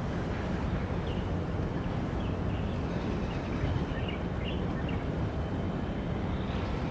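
Steady low rumbling outdoor noise with no distinct events, and a few faint, short high chirps in the middle.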